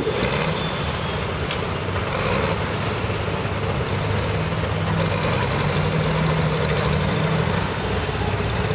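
Hot farm class pulling tractor's diesel engine idling steadily at the sled, waiting to be hooked up for its pull.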